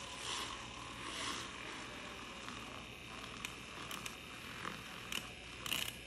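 Handheld battery milk frother whisking milk in a small stainless steel jug: a steady whirring hiss with a few short clicks.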